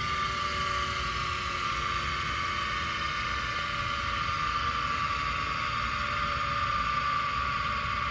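Black & Decker 4300 drill bit sharpener's electric motor and grinding wheel running steadily with no bit against the wheel: a steady whine with fainter tones beneath, sagging slightly in pitch.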